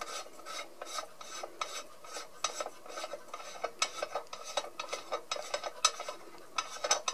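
Brass filler cap being unscrewed from the meths tank of a model steam locomotive's tender: a run of small, irregular scraping clicks, several a second, as the threads turn and fingers rub on the metal.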